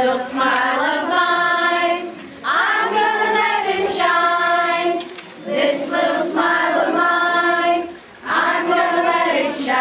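A group of women singing together in drawn-out, held phrases, with a brief breath between phrases about every two and a half seconds.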